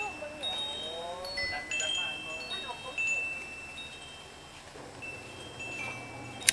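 Wind chimes ringing: several clear high notes that start at different moments, overlap and fade. A sharp click right at the end is the loudest single sound.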